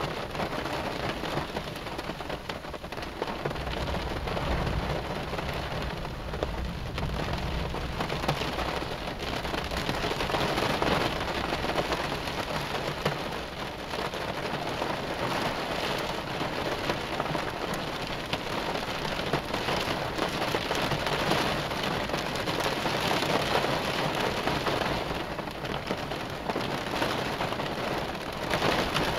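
Heavy rain pattering steadily on a car, a dense hiss of countless drop strikes. A low rumble of thunder swells and fades about four to eight seconds in.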